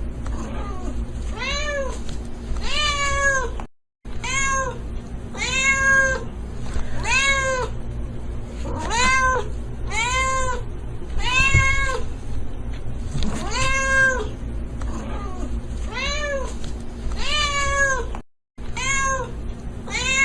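Domestic cat meowing over and over, a rising-then-falling meow about once a second, with a steady low hum beneath. The sound cuts out completely twice, briefly, about four seconds in and near the end.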